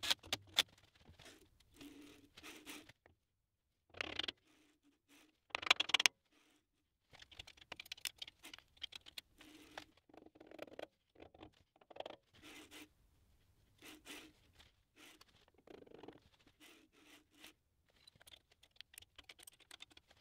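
Scattered clicks, taps and scrapes of hand tools and small metal parts being handled on a steel linear-rail frame, with two brief louder bursts about four and six seconds in.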